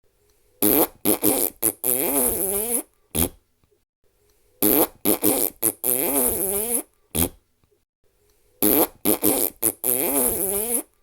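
Fart sound effect played three times in a row, once about every four seconds. Each time there are three short blasts, then a longer one whose pitch wavers up and down, then a final short pop.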